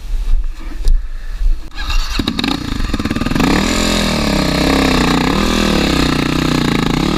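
Dual-sport motorcycle engine starting about two seconds in, then running with the throttle blipped up and down several times. Before it, rumble and handling knocks on the helmet microphone.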